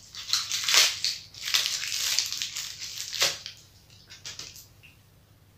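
Silver foil wrapper crinkling and crackling as it is peeled off a white chocolate bar. The crinkling comes in bursts for about three and a half seconds, then a few faint rustles.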